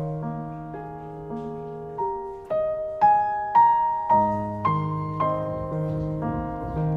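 Background music: a slow, gentle solo piano melody, single notes struck about every half second over sustained bass notes.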